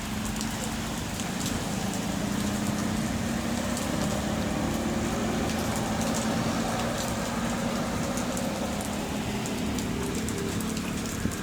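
Heavy rain falling steadily, with sharp drop impacts throughout and a low steady hum underneath.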